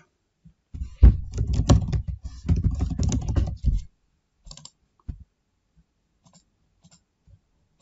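Typing on a computer keyboard: a quick run of keystrokes starting about a second in and lasting about three seconds, then a few quieter scattered mouse clicks.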